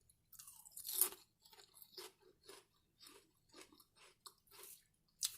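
Close-miked chewing of crunchy food: a loud crunching bite about a second in, then steady chewing at about two chews a second.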